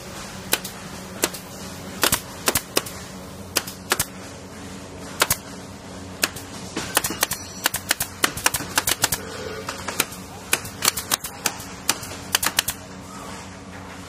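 Pneumatic nail gun firing into aluminium, a series of sharp snaps at irregular spacing. The shots come a few at a time at first, then in quick runs through the middle, over a steady low hum.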